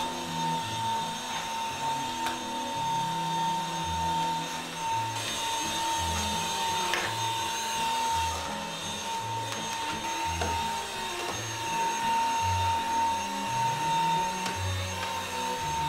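Cordless stick vacuum cleaner running steadily with a constant motor whine as it is pushed over the floor, with background music underneath.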